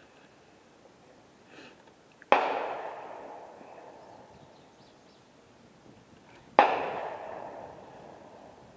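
Two rifle shots about four seconds apart, each a sharp crack trailing off in a long echo.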